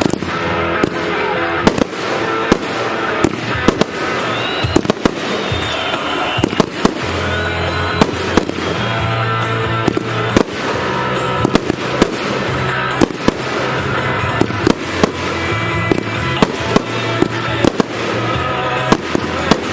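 Fireworks show: a rapid, irregular string of sharp firework bursts and bangs, often a couple a second, over music with a steady bass line.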